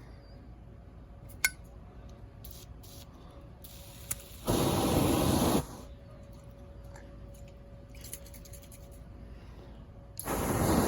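Two short hissing bursts from an aerosol spray can, each about a second long, the second near the end, with a sharp metallic click and a few lighter clinks, typical of a Zippo lighter's lid, in between.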